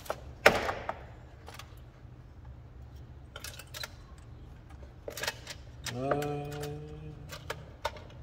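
Hard plastic-cased Ford C-Max lithium battery cells clacking and knocking as they are set down and pushed together in rows on a wooden board, with the sharpest knock about half a second in. A man hums briefly about six seconds in.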